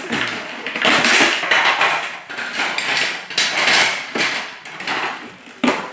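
Hard plastic toy pieces clattering and knocking together in a run of irregular knocks and rattles.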